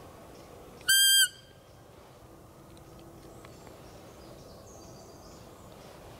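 One short, high, steady-pitched fiep, about a second in, blown on a roe deer call. It imitates a doe's contact call to lure a roebuck during the rut.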